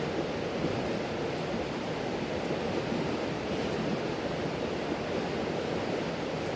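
Mountain stream flowing steadily, a constant rushing of water, with a few faint ticks over it.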